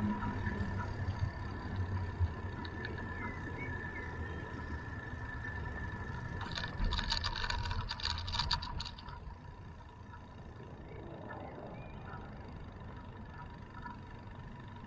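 Bicycle rolling along a street, with a low tyre and wind rumble. About two-thirds of the way through, the bike clatters briefly over paving stones with a fast run of sharp ticks. After that the rumble drops and the ride goes on more quietly.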